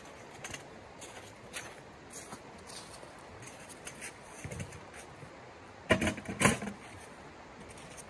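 Camping gear being handled inside a canvas tent: light clicks and rustles, then two loud knocks in quick succession about six seconds in. A steady rush from the nearby creek runs underneath.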